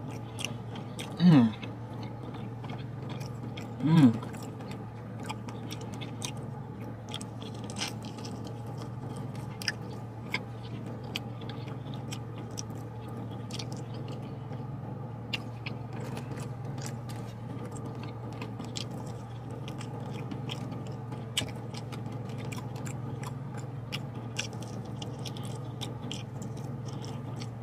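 A person chewing chicken wings with sauce, many small wet mouth clicks over a steady low hum inside a car cabin. Two brief loud vocal sounds break in about one and four seconds in.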